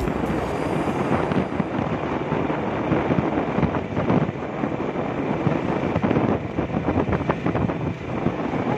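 Wind rushing over the microphone of a moving vehicle, over steady engine and tyre noise on a paved road.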